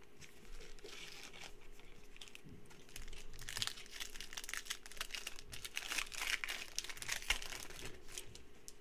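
Foil wrapper of a Donruss basketball card pack crinkling and tearing as it is pulled open by hand, the crackling thickest from about three seconds in.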